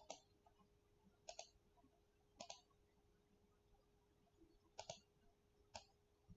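Scattered computer mouse clicks, about six spread over the few seconds, some in quick pairs, against near silence with a faint steady hum.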